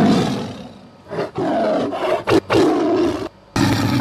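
Recorded tiger roar sound effect: a run of loud, rough roars, the first fading over about a second, then several shorter ones.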